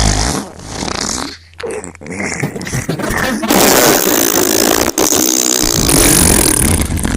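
Fart sounds: a run of loud, raspy farts one after another, with short breaks about a second and a half in and near five seconds in.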